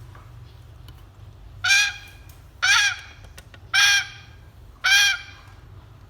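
Grey parrot giving four loud, harsh honking squawks, about one a second, each short and rising then falling in pitch.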